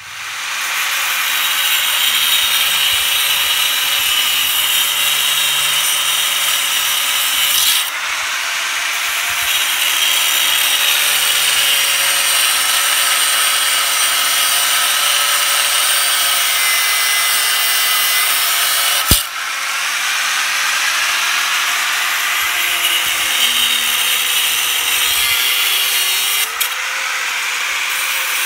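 Corded angle grinder running continuously, its abrasive disc cutting through the steel wires of a welded-wire hog panel with a steady whine. A single sharp crack sounds about two-thirds of the way in.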